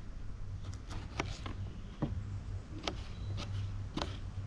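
Kitchen knife dicing vegetables on a chopping board: a slow, uneven series of knocks as the blade hits the board, over a steady low hum.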